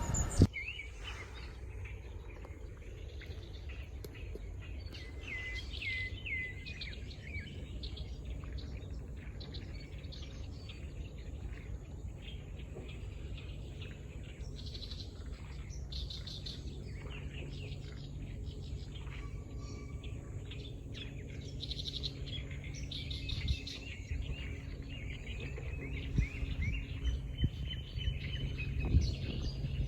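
Several wild birds calling, with short chirps and brief trills repeated throughout over a steady low background rumble.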